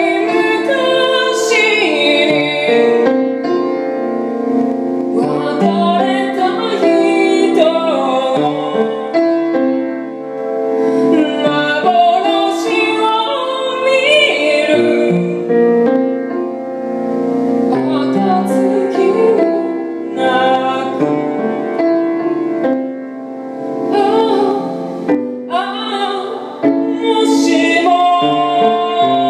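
A woman singing a slow melody with vibrato over her own piano accompaniment of sustained chords, in a song with a Japanese traditional-music flavour.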